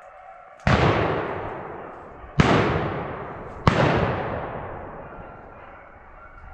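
Three shotgun shots, the second about a second and a half after the first and the third about a second and a quarter later, each followed by a long echo that dies away.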